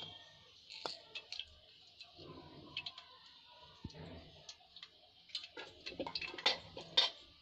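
Light clicks and knocks of kitchen utensils handled at a steel pot of yogurt and gram-flour batter, a few scattered at first and coming more often in the last couple of seconds.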